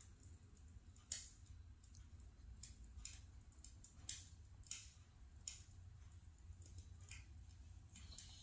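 Near silence: room tone with a low hum and a few faint, irregularly spaced clicks.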